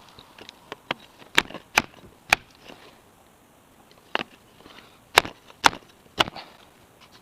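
Bicycle fork turned upside down on a PVC pipe over its steerer tube, smacked down onto concrete to drive the crown race onto the fork crown: about seven sharp smacks in two groups of three and four, with a few lighter knocks before them.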